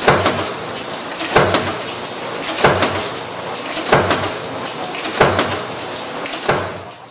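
Komatsu H2W300 servo stamping press running a progressive die, each stroke landing as a sharp impact about every 1.3 seconds, six strokes in all, over a steady machine hum between strokes.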